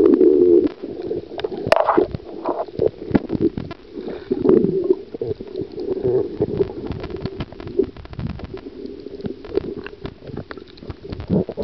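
Muffled underwater sound picked up by a camera beneath the surface: a steady gurgling rush of water with many sharp clicks and knocks scattered throughout, loudest in the first half-second.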